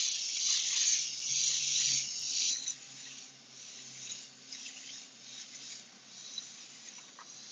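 Iwata Eclipse airbrush spraying paint: a steady hiss of air for about two and a half seconds, then fainter, broken spurts of hiss.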